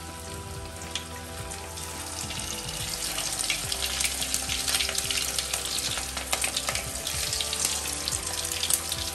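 Masala-coated goat chops frying in hot oil in a steel pot, sizzling and crackling as pieces are lowered in one after another. The crackle grows thicker and louder from about three seconds in as more chops go into the oil.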